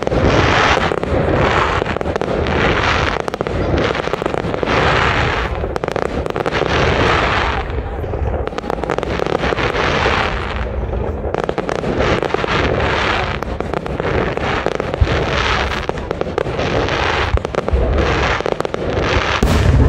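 Large aerial fireworks display going off: shells bursting with a steady run of bangs and crackling, bursts coming about once a second over low booms that grow heavier near the end.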